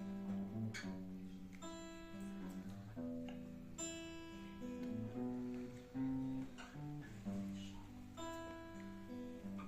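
Acoustic guitar playing an instrumental passage, plucked and strummed chords ringing in a steady rhythm.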